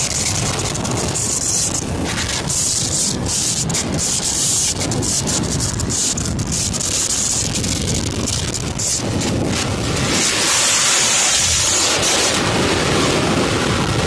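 Storm wind blasting across the microphone, with the rush of a rough, breaking sea, gusting harder about ten seconds in.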